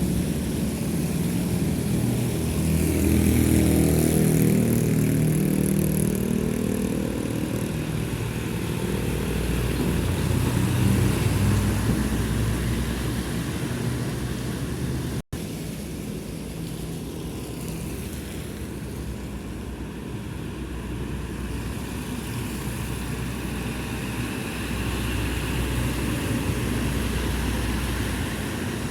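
Heavy diesel trucks passing on a wet road: a big engine's drone swells and its pitch slides as it goes by in the first half, over tyre hiss. A brief dropout about halfway, then steadier, quieter traffic noise.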